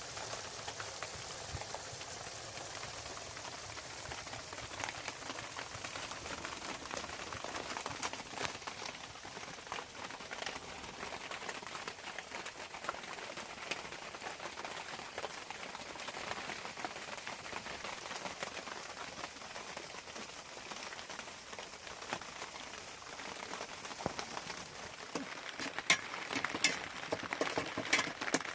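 Rain falling steadily on a surface, with many small drops ticking. Near the end, louder, sharper clicks and knocks come thick and fast.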